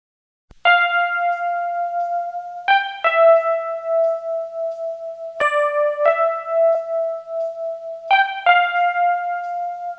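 Slow keyboard melody of single sustained notes, each struck and held for a second or more, about seven in all, twice with a quick note leading straight into the next.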